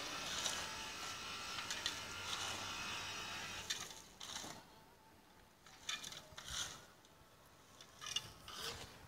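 Shovels scraping through concrete and gravel in a few separate strokes, over a steady mechanical hum that drops away about four seconds in.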